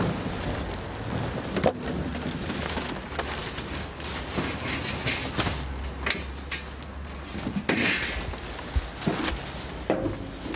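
Paper and plastic rubbish crackling and rustling as it is tipped out of a sack and sorted by gloved hands: a steady crinkle broken by many short sharp clicks.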